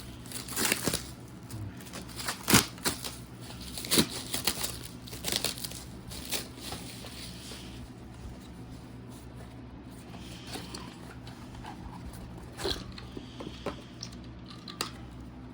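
A small cardboard box and its packaging being opened and handled: crinkling, tearing and crackling, busiest in the first several seconds, then sparser clicks and rustles.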